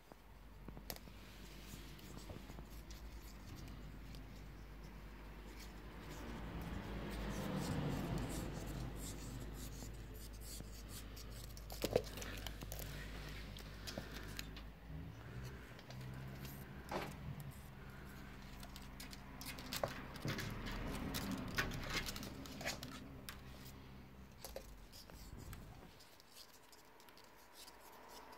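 A cat moving about close to the phone: scratchy rustling and a few sharp clicks over a low steady hum, the loudest click about twelve seconds in.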